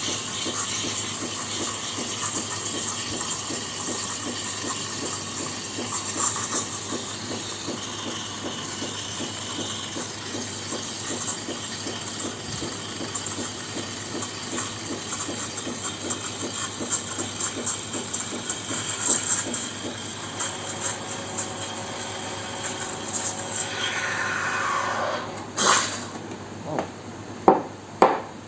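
Krups EA8080 steam wand hissing and sputtering as it froths milk in a jug, the nozzle held submerged. Near the end a falling whine comes as the steam cuts off, followed by a few sharp knocks.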